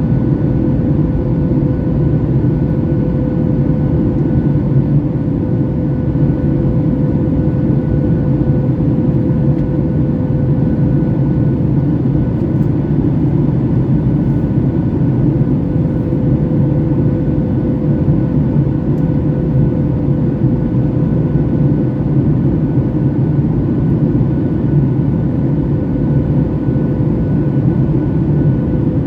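Steady cabin noise inside a Boeing 737 MAX 8 under way, from its CFM LEAP-1B jet engines and airflow: a low rumble with a steady mid-pitched hum over it.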